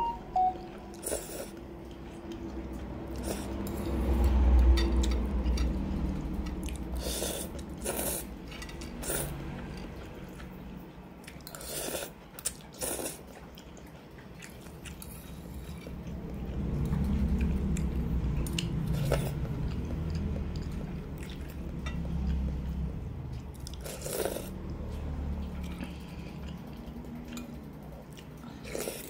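Close-miked slurping and chewing of spicy instant noodles. The mouth noise swells and fades, with sharp clicks every second or two.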